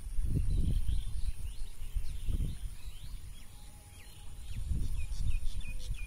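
Wind buffeting the microphone in low, irregular gusts, with small birds chirping now and then in the background, a quick run of chirps near the end.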